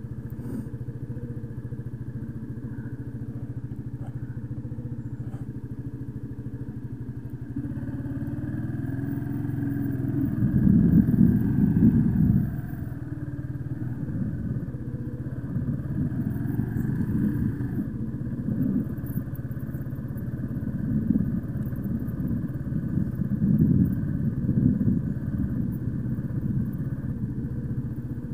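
125cc learner motorbike's engine idling steadily, then revved up about eight seconds in, loudest around eleven to twelve seconds. After that it keeps running with the throttle opened and eased off several times.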